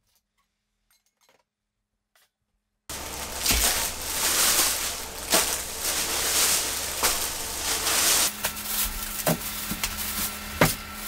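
Near silence for about three seconds. Then a thin plastic shopping bag rustles and crinkles loudly as groceries are pulled out of it and set down on a wooden counter, with scattered knocks and taps of packages landing.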